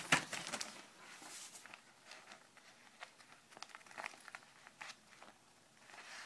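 Newspaper rustling and crinkling under a pet rat's feet as it walks across the sheet, with scattered light clicks. A single sharp knock comes right at the start.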